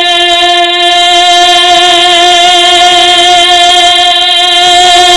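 A man singing a naat, holding one long steady note through a microphone and loudspeakers.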